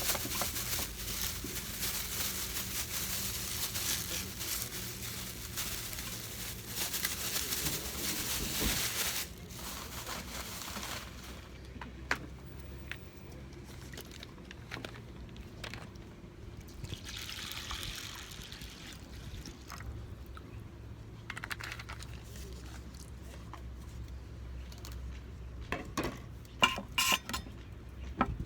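Water pouring steadily for about nine seconds while rice is readied for cooking, then quieter handling with a short rush of sound midway and a few sharp knocks near the end.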